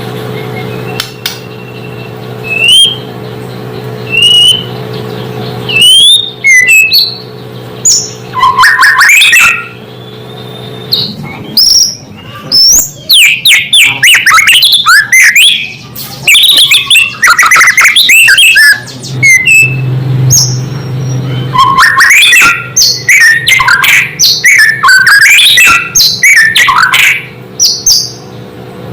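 White-rumped shama (murai batu) singing: a few separate rising whistles at first, then long runs of loud, rapid, varied song phrases with short pauses between them.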